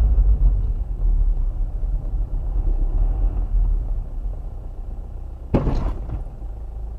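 Low engine and road rumble inside a moving car, then one sharp bang with a short ringing tail about five and a half seconds in: a low-speed rear-end collision with a braking car ahead.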